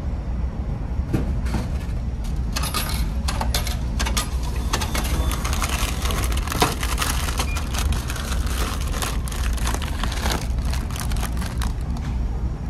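Plastic wrapping of a packaged pizza crinkling and crackling as it is pulled from a vending machine's hatch and handled, in quick bursts from a few seconds in. Under it runs a steady low rumble of the ferry.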